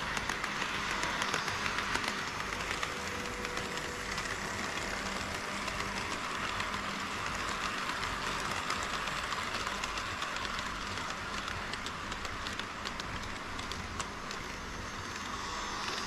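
HO scale model trains rolling past on KATO Unitrack: a steady whir of metal wheels and motors, with rapid fine clicking throughout as wheels cross the track joints.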